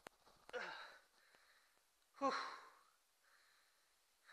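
A man letting out two short grunts of effort with falling pitch, the second louder, while straining on a wrench against a tight connecting-rod nut; a faint click of the tool at the very start.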